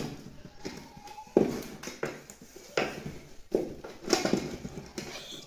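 A spatula knocking and scraping against an aluminium pot as it presses and turns stiff white porridge, in a run of uneven knocks.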